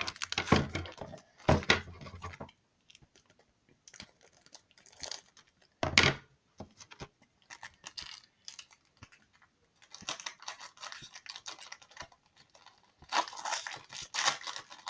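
Plastic toy packaging being torn open and crinkled in irregular bursts, with a sharper rip about six seconds in.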